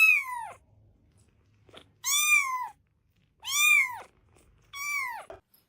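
A cat meowing four times, each meow about half a second long, rising and then falling in pitch, spaced a second or two apart.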